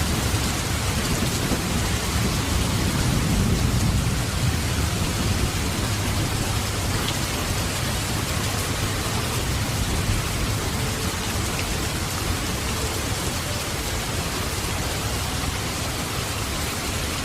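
Heavy rain falling steadily, a dense even hiss. A low rumble swells and fades a few seconds in.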